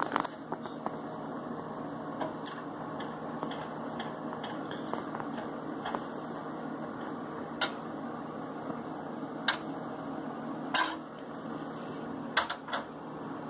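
Scattered sharp metallic clicks and clinks, about half a dozen, from taking an expansion-slot cover off a PC case, over a steady low hum.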